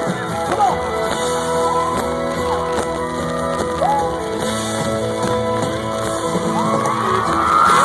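Live country band playing through a break in the vocals, with the crowd whooping and yelling over the music; it swells louder near the end.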